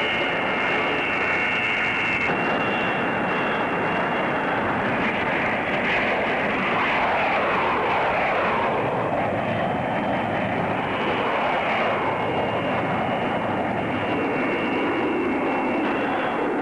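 Jet fighter engines running loud and steady, with a high turbine whine. In the middle the noise sweeps in pitch as the aircraft moves.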